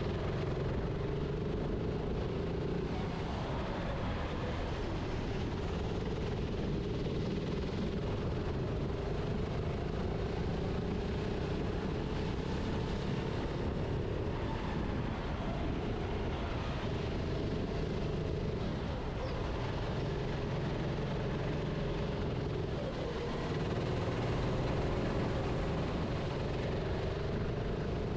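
Kart engine running under the driver, its note rising and falling slowly as it is revved through corners and eased off, over a steady rushing noise.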